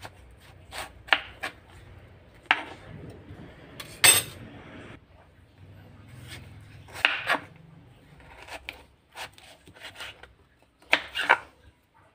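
Kitchen knife slicing peeled green papaya into long strips on a wooden cutting board: scattered scraping cuts and short knocks of the blade on the board, the loudest about four seconds in.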